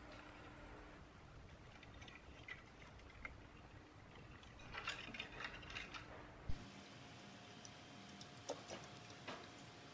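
Faint, scattered light clicks and taps of wiring and small parts being handled on a moving-head beam light, with a short cluster of clicks about five seconds in and one sharper click a little later.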